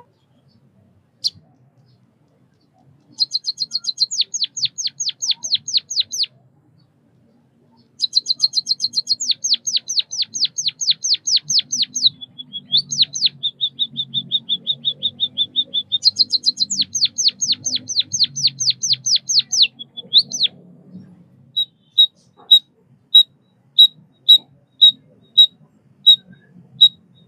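White-headed munia singing: fast runs of high sweeping chirps, broken in the middle by a steady buzzing trill, then, in the last few seconds, single sharp chirps about two a second.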